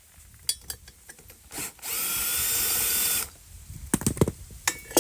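A power drill runs for about a second and a half, its motor whine rising slightly as it spins, while taking the muffler bolts off a Briggs & Stratton mower engine. A few sharp metal clinks and knocks follow near the end.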